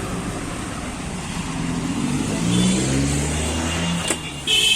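Road traffic with a motor vehicle's engine swelling and slightly rising in pitch as it passes, then a vehicle horn sounding near the end.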